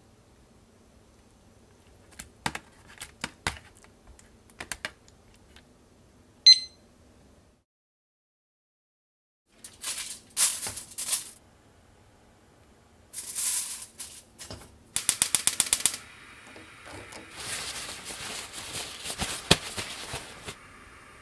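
Kitchen handling sounds with no speech: light taps of a metal measuring spoon against a stainless steel tray and one sharp ringing clink about six seconds in. Then aluminium foil crinkles in a carbon-steel wok, a fast, even run of clicks follows, and paper towels rustle over the tray near the end.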